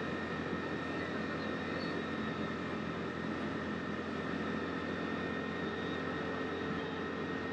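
Side-by-side UTV engine running at a steady, unchanging speed while under way.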